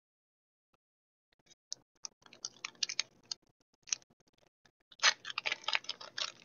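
Foil booster-pack wrapper crinkling and crackling as it is handled and opened. Scattered crackles start about a second and a half in and become dense and louder near the end.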